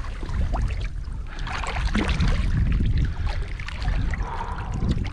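A hooked tope, a small shark, thrashing at the surface beside a kayak, its tail slapping and splashing the water on and off, over a steady low rumble of wind on the microphone.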